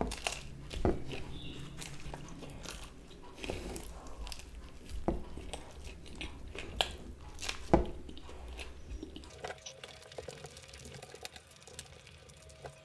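A person chewing a mouthful of cheesy pizza crust close to the microphone, with irregular sharp clicks, the loudest about eight seconds in; the chewing grows quieter from about nine seconds in.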